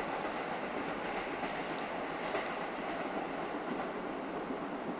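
A train running past on the track: a steady rolling rumble of wheels on rail.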